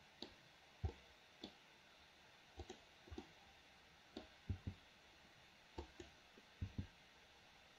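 Computer mouse and keyboard clicking over a quiet background: about a dozen short, sharp clicks at irregular intervals, some in quick pairs.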